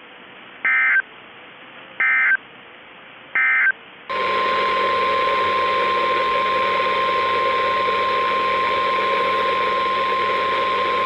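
Three short warbling data bursts of an Emergency Alert System SAME end-of-message code, about a second apart. About four seconds in comes a steady single-pitch NOAA Weather Radio 1050 Hz warning alarm tone over hiss and a low hum, marking the start of a new warning.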